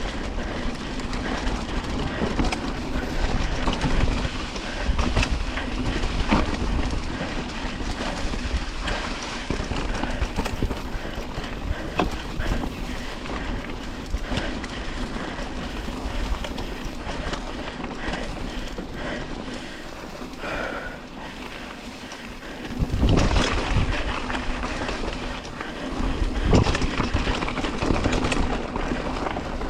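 Mountain bike rattling and its tyres rolling over a rough dirt trail at speed, with wind buffeting the microphone. There is a brief quieter patch, then two louder, rougher stretches near the end.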